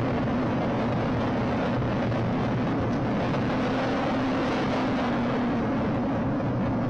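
Longboard's orange urethane wheels rolling over asphalt, heard close up from under the deck: a steady road roar with a faint low hum beneath it.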